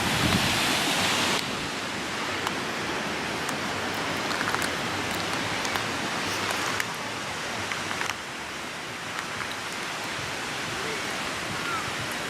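Steady rushing of ocean surf mixed with wind on the microphone. It is louder for about the first second and a half, then settles to an even level.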